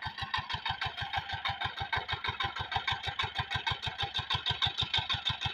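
Small single-cylinder diesel engine of an irrigation water-pump set running steadily, a fast even put-put of about seven beats a second, while it pumps water.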